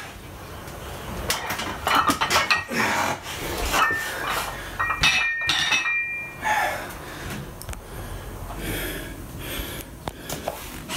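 Plate-loaded dumbbells with black metal plates clanking as the pair of 17.5 kg dumbbells is set down and handled. A run of sharp metal knocks is followed midway by a brief ringing clink.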